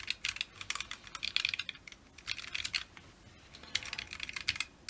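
Mechanical keyboard keys clacking in a few short, uneven runs of presses: the Sunset tactile switches of a Corne-ish Zen split keyboard being tried out.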